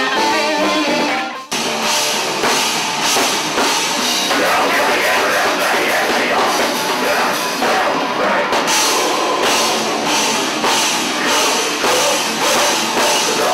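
Live rock band playing loud, with electric guitar and a drum kit with cymbals. The music cuts abruptly to a different passage about one and a half seconds in.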